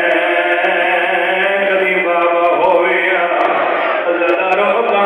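A zakir (Shia majlis orator) chanting his recitation into a microphone in a melodic voice, drawing out long wavering notes without a pause.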